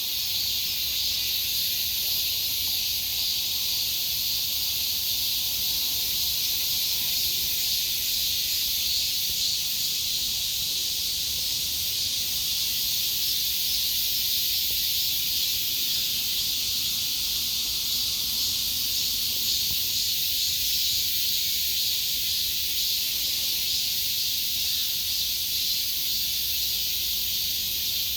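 Summer cicadas singing in a steady, unbroken high-pitched drone.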